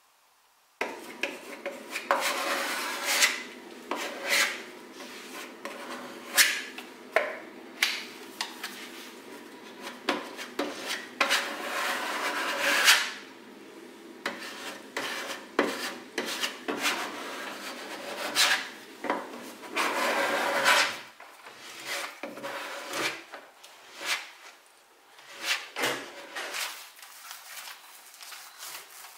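Hand sanding a wooden panel with a sheet of sandpaper: repeated rough back-and-forth rubbing strokes over a steady low hum. About two thirds of the way in the sanding and hum stop, leaving softer, scattered rubs and taps.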